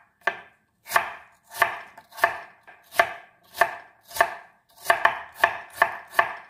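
Chef's knife dicing peeled potatoes on a wooden cutting board: a regular run of sharp chops of the blade against the wood, a little under two a second, coming faster near the end.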